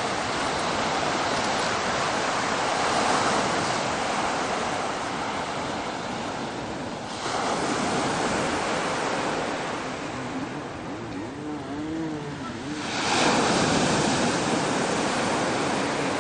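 Ocean surf breaking on the shore, a steady rush that surges again about seven seconds in and once more near thirteen seconds. Faint wavering voice-like calls sound in between.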